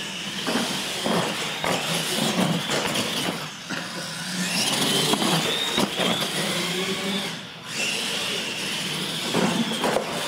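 Radio-controlled monster trucks racing on a concrete floor, their electric motors whining and rising and falling in pitch as the throttle is worked, over a hiss of tyre noise.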